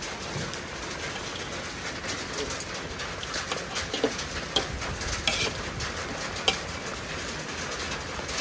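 Metal spatula and spoon scraping and clinking against a wok as chicken in a thick spice paste is stirred, with a few sharp clinks in the second half, over a steady hiss.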